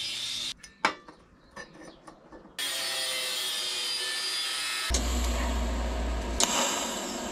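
Angle grinder cutting a steel exhaust pipe: it runs, stops about half a second in, a few clicks follow, and it cuts again from about two and a half seconds in. From about five seconds in the tool noise gives way to the crackle of arc welding on the pipe, with a low hum beneath it at first.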